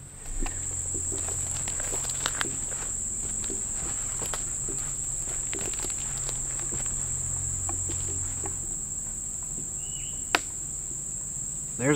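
Steady high-pitched chorus of late-summer insects, with footsteps and rustling as someone walks through brushy bottomland cover.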